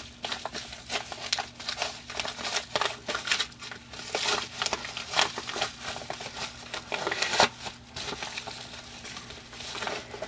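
Crinkling and crackling of a yellow Amazon padded paper mailer as it is pulled open and handled, in irregular crackles throughout.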